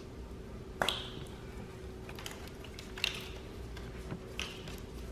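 Plastic wiring-harness connectors clicking and tapping as they are unclipped and worked loose on a BMW M54 engine: a sharp click about a second in, two more near three and four and a half seconds, with lighter ticks between.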